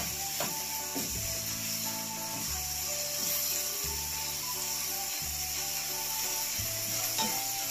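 Background music over chopped onion and liver sizzling in a frying pan, with a wooden spatula rubbing and scraping across the pan. There are a few sharp knocks of the spatula near the start and again near the end.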